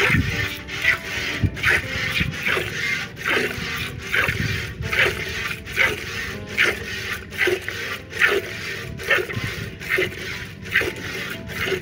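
A cow being milked by hand: streams of milk squirting into the milk in a metal bucket, in an even rhythm of short hissing strokes about two a second.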